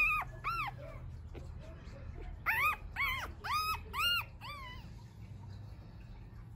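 Five-day-old puppy crying in high, arching squeals: two at the start, then a quick run of about six in the middle.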